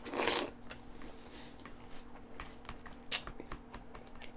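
A person eating a spoonful of milk-soaked Strawberry Toast Crunch cereal: a brief slurp as the spoon goes into the mouth, then soft clicking chewing sounds, with one sharper click about three seconds in.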